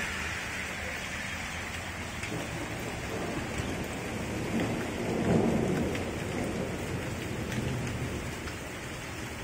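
Steady rain falling, with a low rumble of thunder swelling and fading about halfway through.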